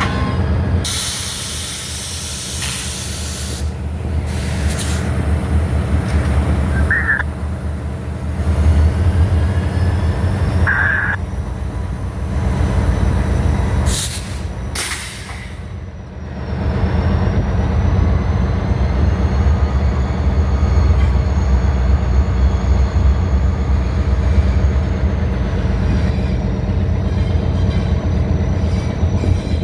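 Diesel freight locomotive running with a steady low engine drone. It is broken by several loud bursts of hissing noise, with two short high squeaks in the middle and a faint high whine through the second half.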